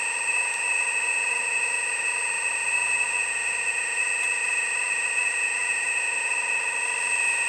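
Steady whine of the Earth Digger 4200 XL radio-controlled excavator's hydraulic pump running, holding one constant pitch.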